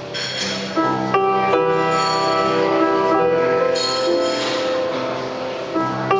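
Live music from a small acoustic performance: held, stacked chords over a low sustained note, with new notes struck about a second in and again near the end, and a bright high shimmer in places.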